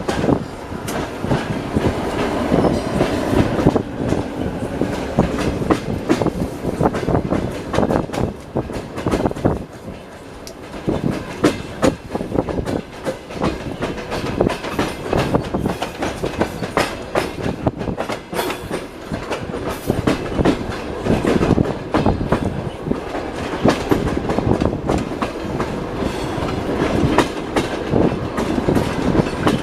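Moving passenger train heard from inside the carriage: steady running rumble with the wheels clattering over rail joints and points in quick, irregular knocks, easing off briefly about a third of the way through.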